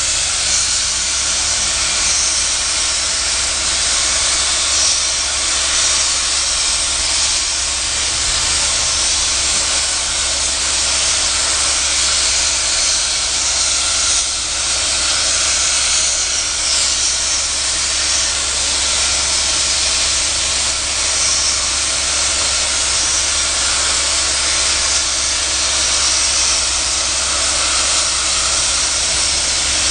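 NSW 59 class steam locomotive 5917 letting off steam in a loud, steady hiss that doesn't let up.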